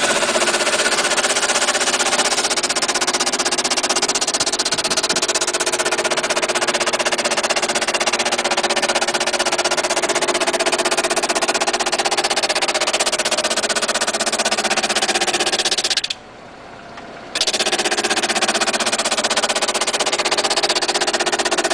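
Power sander running steadily on a veneered wood panel, a constant motor hum with abrasive hiss. About three quarters of the way through it cuts out abruptly for about a second, then comes back at full level.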